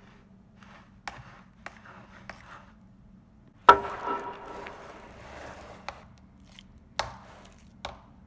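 A series of sharp knocks and taps on a hard object. The loudest comes about halfway through and rings briefly, with softer rustling between the knocks.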